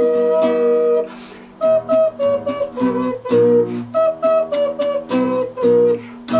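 Wooden double ocarina playing a quick melody in two-note harmony. A held two-note chord gives way about a second in to a short break, then a run of short, detached notes.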